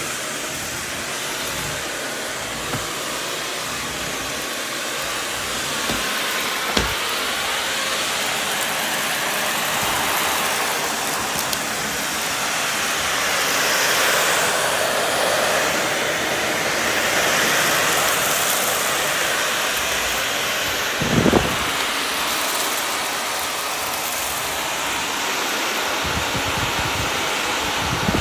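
Vacuum cleaner running steadily over a hardwood floor, its sound swelling and easing as it moves, with a few sharp crunches and clicks of small debris being sucked up, the loudest about seven and twenty-one seconds in.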